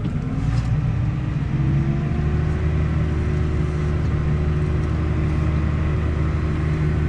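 Tractor diesel engine droning, heard from inside the cab; its pitch rises a little over the first two seconds, then it runs steadily.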